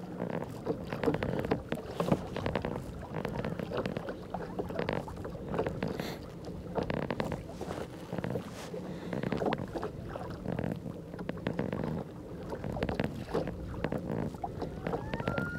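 Water lapping and splashing irregularly against the hull of a kayak under way at slow cruising speed.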